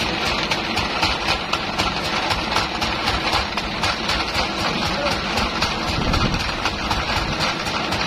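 Band sawmill running idle while the log is not being cut: a steady machine hum with fast, even ticking, about five ticks a second.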